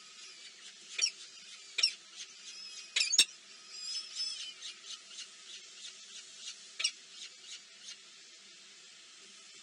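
Small birds giving high-pitched chirps and squeaks: four sharp loud chirps in the first few seconds, then a quick run of fainter chirps that tapers off.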